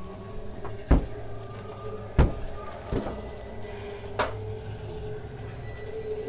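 Four sharp knocks or bangs, the first two loud, over a steady low hum.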